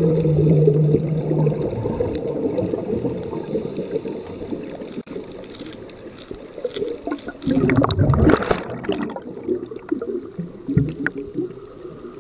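Underwater sound of scuba bubbles gurgling and rushing, heard through the camera's waterproof housing, with a louder gush of bubbles about eight seconds in. A low steady hum sounds during the first second or so.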